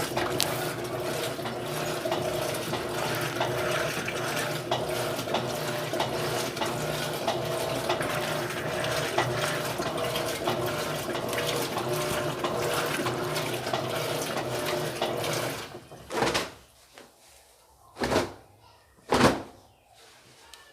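Electrolux LT13B top-loading washing machine running its wash, a steady water-churning noise with a motor hum, which cuts off about three-quarters of the way through. Three short, loud noises follow, spaced a second or two apart.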